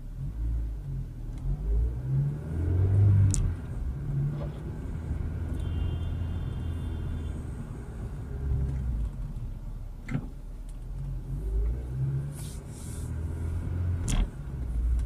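Car driving, heard from inside its cabin: a low engine and road rumble that swells and eases with speed, with a few sharp clicks.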